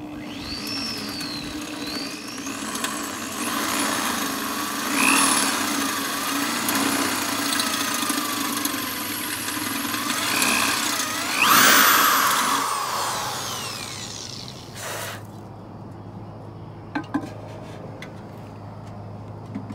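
Corded DeWalt electric drill boring 13/64-inch holes, its motor whine rising and falling in pitch as the trigger is eased on and off, loudest about 5 and 12 seconds in. It stops about two-thirds of the way through, gives one short burst a little later, and a couple of light clicks follow.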